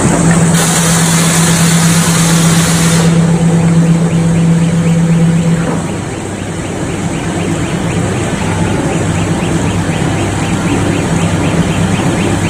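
Hot rolling mill for rebar and wire rod running: loud machinery with a steady hum and, for the first few seconds, a high hiss. About six seconds in the hum and hiss stop and the level falls, leaving a fast, even ticking clatter from the mill line.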